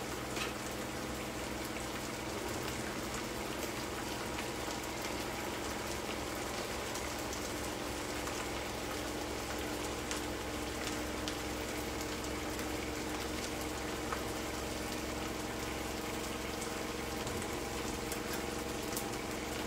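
Pans cooking on the hob: a steady, even sizzling hiss with a low hum under it and a few faint ticks.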